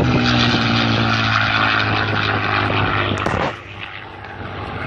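Propeller-driven airplane passing overhead, its engine drone pitched steadily with a slight downward drift in pitch; about three and a half seconds in it drops off sharply to a quieter, more distant sound.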